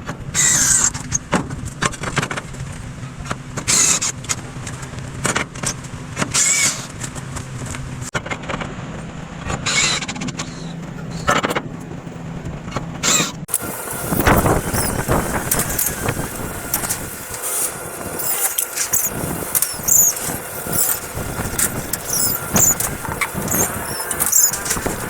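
Power tools at work on a roof build, running in short repeated bursts with high squealing streaks over a steady low hum. The sound changes character about 13 seconds in.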